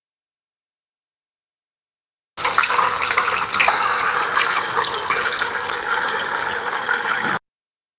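Office water cooler dispensing a stream of water into a cup. It starts abruptly about two seconds in and cuts off just as sharply some five seconds later.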